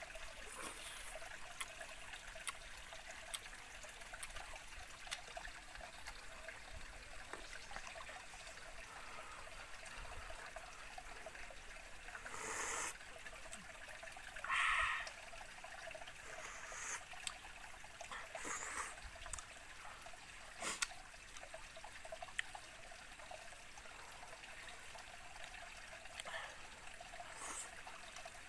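Steady trickle of a small forest stream, with a few short eating sounds in the foreground.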